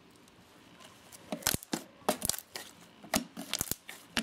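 Hands squishing and stretching fluffy slime made with shaving cream and foaming hand soap, giving an irregular run of sharp sticky pops and crackles that starts about a second in.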